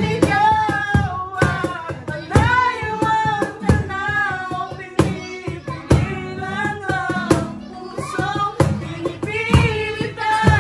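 A man and a woman singing a song together to a strummed acoustic guitar, with a cajon slapped in a steady beat of sharp knocks.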